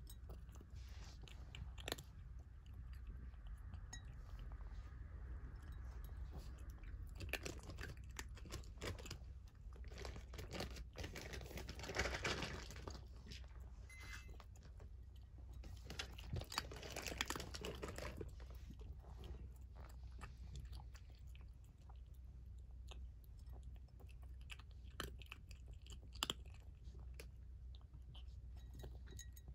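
Orange tabby cat eating from a raised ceramic bowl, chewing and crunching its food in quick irregular bites, with busier, louder stretches of crunching in the middle.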